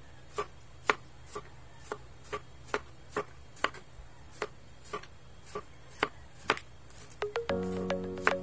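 Kitchen knife slicing a cucumber into rounds on a plastic cutting board: a crisp chop against the board about twice a second. Background music comes in near the end.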